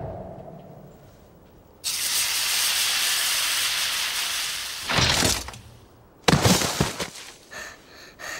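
Fight-scene sound effects: the tail of a blast dies away, then a sudden steady hiss lasts about three seconds. A short loud burst follows, and then a few sharp hits near the end.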